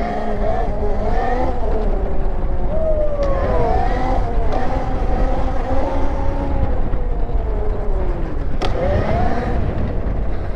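MotoFlow K3000 electric dirt bike riding under power. Its motor and drivetrain whine rises and falls in pitch as the throttle is worked, over a heavy low wind rumble on the microphone.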